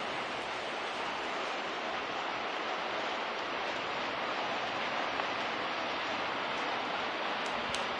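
Rain falling steadily, an even hiss with no let-up, with a faint tick or two near the end.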